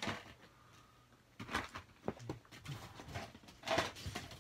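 A few light, scattered clicks and rustles of small objects being handled and moved about, with quiet between them.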